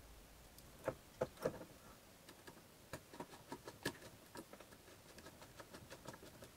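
Faint clicks and light taps of hands handling wires and a small motor speed-controller circuit board, with a few sharper clicks at about one to one and a half seconds and near four seconds.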